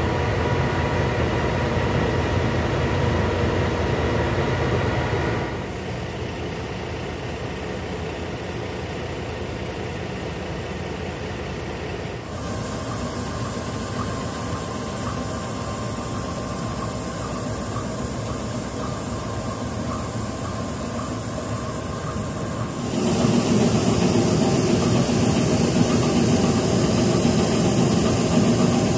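Diesel locomotive engine idling steadily, its hum dropping abruptly in loudness about five seconds in and rising again in two sudden steps, about twelve and twenty-three seconds in.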